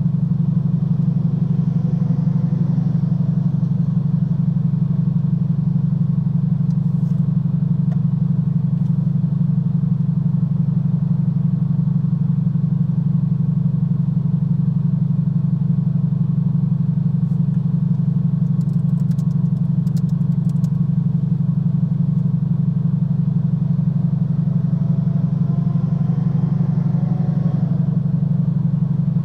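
Steady low drone of a running vehicle engine, unchanging throughout.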